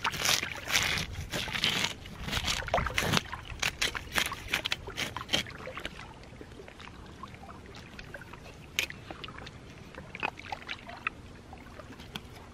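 Shallow water splashing and sloshing at a rocky shoreline as a striped bass is handled and cut with a knife, with scattered small clicks and scrapes. The splashes are busiest in the first few seconds, after which mostly gentle lapping and an occasional click remain.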